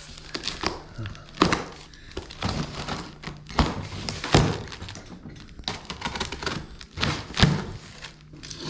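Wooden beehive box parts knocked and tapped together during assembly: a run of irregular wooden thunks and knocks, some sharp and loud, others lighter.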